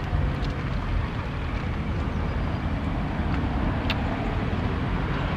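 Steady low rumble of motorway traffic, with a few faint clicks.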